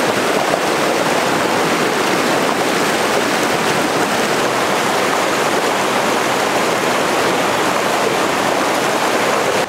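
Fast creek running over rocks: a steady, loud rush of water.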